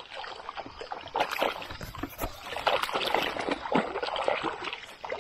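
Shallow creek water splashing and sloshing in short, irregular strokes as the submerged grass roots of the bank are stirred up against a dip net to flush out aquatic insects.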